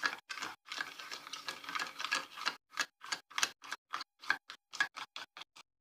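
Utensil stirring a little yeast, sugar and lukewarm water in a small bowl, tapping and scraping against the bowl in quick strokes, about four a second.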